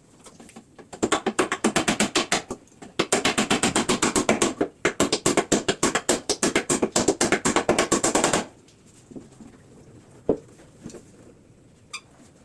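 Rapid mechanical clicking from a woodworking tool, about ten sharp clicks a second, in three runs over about seven seconds, stopping suddenly.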